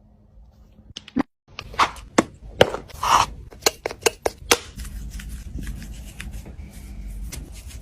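A quick, irregular series of sharp knocks and taps, about a dozen over three seconds, followed by a low steady rumble with a few faint ticks.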